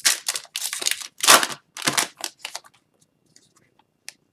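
Wrapper of an Upper Deck Series 1 hockey card pack crinkling and tearing as it is opened, in irregular rustles for about two and a half seconds. Then a few faint ticks and one sharp click near the end.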